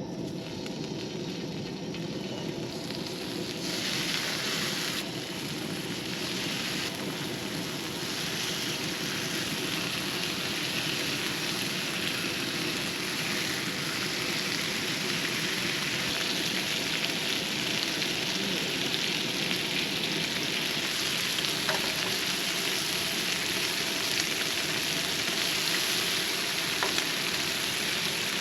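Bacon frying on a camp grill: a steady, continuous sizzle that grows a little louder about four seconds in.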